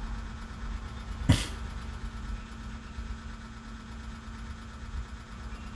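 Steady low hum of machinery, like an engine idling, with one sharp click about a second in.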